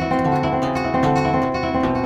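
Flamenco guitar playing an arpeggio section in soleá por bulería style: a continuous run of ringing picked notes over changing bass notes.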